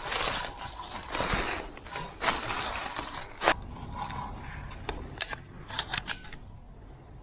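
Footsteps crunching through dry leaves, three steps about a second apart, then a sharp snap and a few light clicks.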